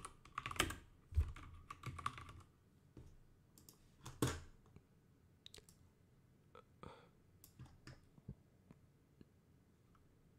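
Typing on a computer keyboard: a quick run of keystrokes in the first couple of seconds, then scattered single clicks with one louder click about four seconds in.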